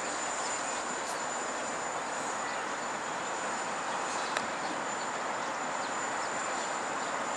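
A steady hiss with a thin, constant high whine over it, broken by a single sharp click about four seconds in.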